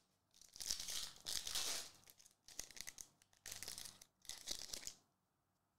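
Foil trading card pack being torn open and its wrapper crinkled, in four or five short rustling bursts that stop about five seconds in.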